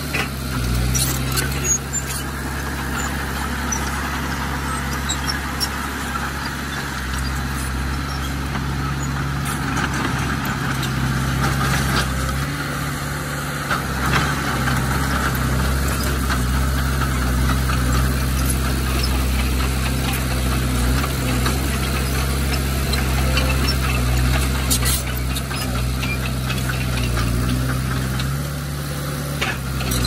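Bulldozer's diesel engine running steadily under load, with a squealing haze from the working machine and a few sharp clicks or knocks.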